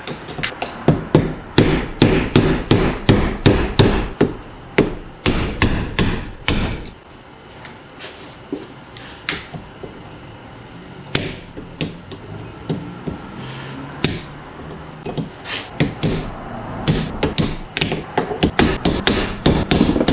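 A hammer tapping a blade tip against the retaining clips of a driveshaft's double cardan U-joint yoke to knock them loose, in quick runs of metallic strikes. The strikes are dense for the first several seconds, sparse and quieter through the middle, then come quickly again near the end.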